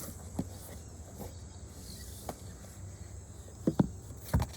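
Cardboard subscription box being opened by hand: scattered light scrapes and clicks, with a few sharper knocks about three and a half seconds in and again near the end.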